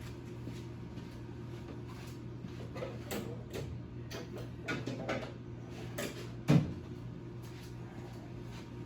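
Hand tools being picked up and handled on a workbench: scattered light clinks and knocks, with one sharper, louder knock about two-thirds of the way through, over a steady low hum.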